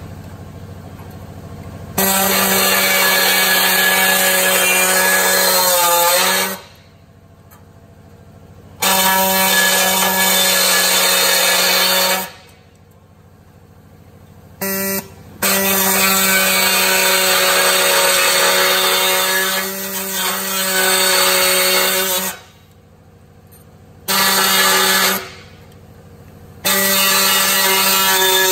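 Pneumatic straight die grinder running in runs of a few seconds with short pauses between: a loud, steady whine that dips in pitch for a moment about six seconds in as the burr bites into the sheet-metal guard.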